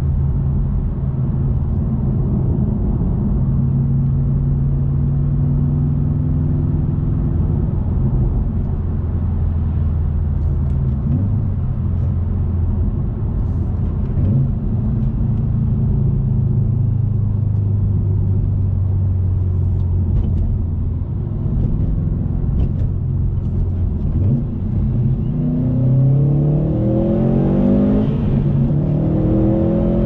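2020 Subaru WRX STI's turbocharged flat-four through a Remark axleback exhaust, heard from inside the cabin with road noise. It cruises at a steady engine note, then near the end accelerates hard, the pitch climbing steeply several times in quick succession.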